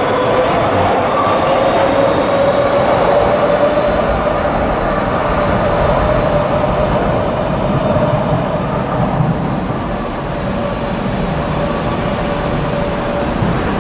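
Madrid Metro train running in a tunnel: a steady rumble of wheels on rail with a held whine over it, easing a little near the end.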